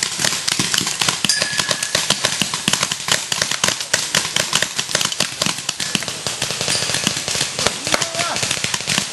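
Paintball markers firing in rapid, overlapping volleys: a dense run of sharp pops, many a second, without a break.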